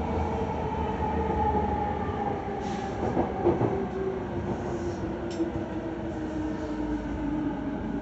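E217 series electric train's traction motors whining over the rumble of the car, the whine falling steadily in pitch as the train slows under braking. A few short clicks from the wheels over rail joints about three and five seconds in.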